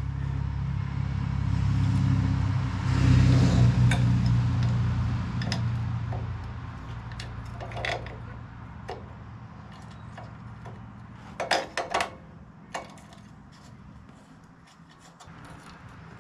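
Small steel parts and hand tools clinking and clicking against a small engine's OHV cylinder head as valve springs and rocker-arm hardware are fitted, including a quick pair of clinks near the end. A low hum sits under it, loudest in the first few seconds.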